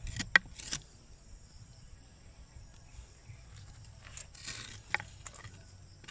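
Sharp taps and clicks, the loudest about half a second in, as a bamboo pointer stick knocks against rock in a hole. A short rustle of dry debris and another tap come near five seconds in.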